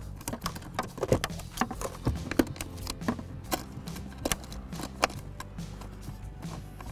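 Scattered sharp clicks and light knocks of small screws and a hard plastic blower motor housing being handled as the screws are started by hand, over low background music.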